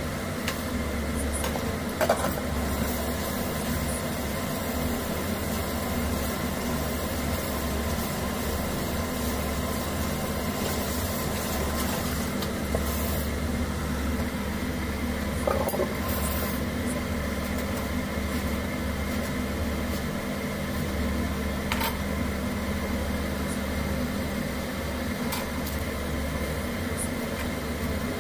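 Steady hum of an appliance motor, with three brief clinks of dishes being washed at a kitchen sink.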